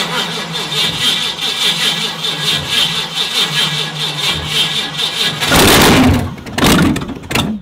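Starter cranking the drag boat's supercharged V8 in a fast, even rhythm for about five seconds; then the engine fires in three loud bursts and stops.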